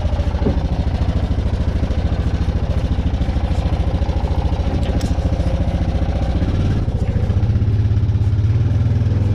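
Small engine running steadily with a fast, even pulse, getting louder from about seven seconds in.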